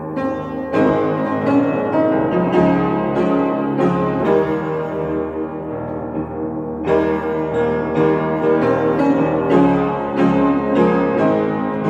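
Piano playing chords and single notes, with a loud chord starting a new phrase about seven seconds in.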